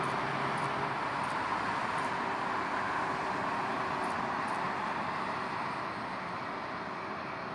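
Jet engines of a Boeing 757: a steady broad roar that slowly fades over the last two seconds.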